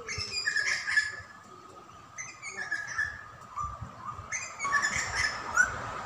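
Birds chirping outdoors in three short bouts of high, busy chirps about two seconds apart.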